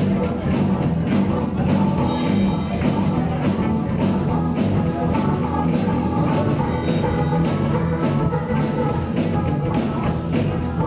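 Live blues-rock band playing an instrumental passage: electric guitars, bass and a drum kit keeping a steady, driving beat.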